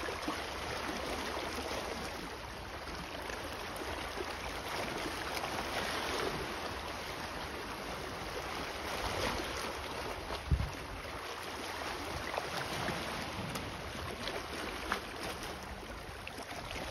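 Small waves lapping and splashing gently against shoreline rocks, a steady watery wash that swells a few times. Wind rumbles on the microphone, with one dull low bump about ten seconds in.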